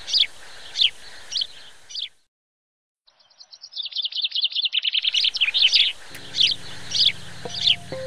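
A songbird calling: a sharp high chirp repeated about every half second, a short pause, then a fast trill of rapid notes that grows louder, then the spaced chirps again. A low steady musical drone comes in about six seconds in.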